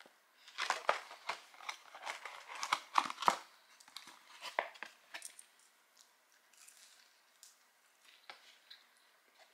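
McDonald's paper and cardboard food packaging crinkling and rustling as it is handled, a flurry of crackles over the first few seconds that thins out to fainter, sparser ones.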